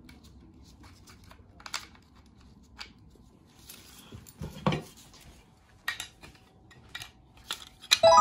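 Metal parts of a micro Draco AK-pattern pistol clicking and clacking as it is reassembled by hand, with a louder knock about four and a half seconds in. A bright chime starts just before the end.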